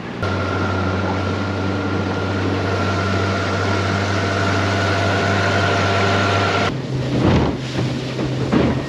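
Small fishing boat's outboard motor running steadily under way, with a low drone and a thin high whine over the rush of wind and water. About two-thirds of the way through, the sound changes abruptly to a different engine note with gusts of wind rushing over the microphone.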